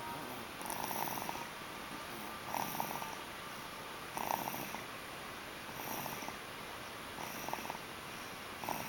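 A little boy snoring, a short rattly snore about every one and a half seconds, six in all.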